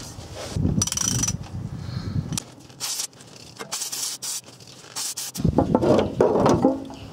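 Socket ratchet wrench clicking as it turns a plug in a manual transmission case, with a quick run of clicks near the start and sharper single clicks after it. From about five seconds in there is a louder patch of handling noise.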